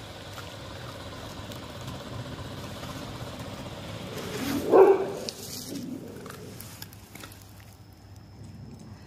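A dog barks once, loud and short, about halfway through, over a low steady background hum.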